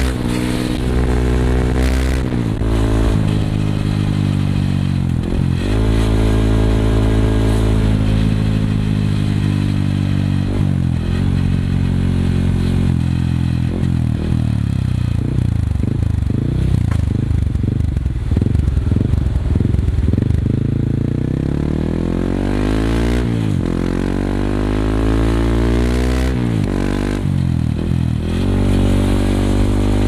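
Yamaha WR155R's single-cylinder engine through a Norifumi Rocket 4 aftermarket exhaust, riding in traffic. Its note rises and drops again and again as the throttle opens and the gears change. For several seconds in the middle it turns choppy and uneven before climbing in pitch again.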